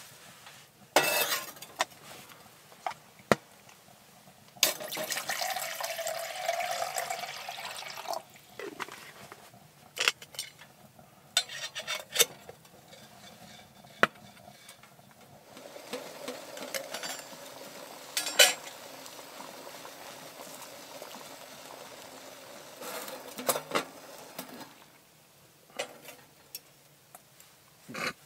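Steel camp cookware being handled on a wood-burning stove top: sharp metal clinks and knocks from the pot, lid and mug while tea water is made. Two longer stretches of water sound come between them, a few seconds of pouring or sloshing, then a steady hiss as the water heats.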